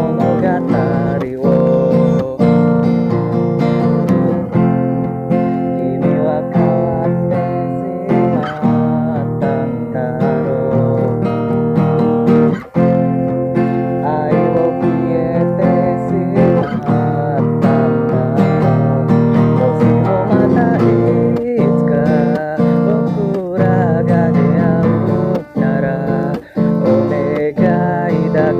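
Acoustic guitar being strummed and plucked, playing a song.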